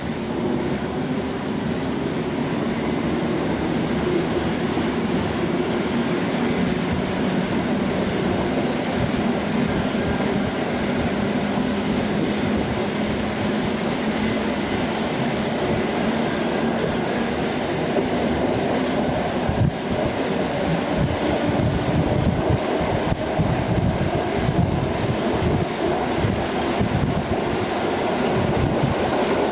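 PKP EN57 electric multiple unit running along the track, its wheels and running gear giving a steady rail rumble that grows louder in the first few seconds. Low knocks come through more strongly in the second half.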